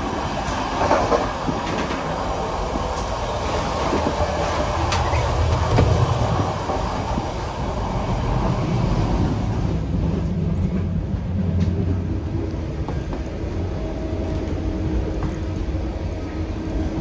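Running noise of a moving passenger train heard from inside the coach: a steady rumble of wheels on rails with a few sharp clicks. It is hissier at first, in the door vestibule, and settles to a lower, duller rumble in the corridor.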